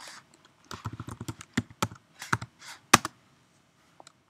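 Typing on a computer keyboard: a quick run of about a dozen keystrokes from about one to three seconds in, one key near the end of the run struck loudest.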